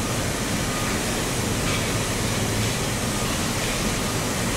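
Steady rushing industrial noise with no distinct events: the background din of a hot process plant.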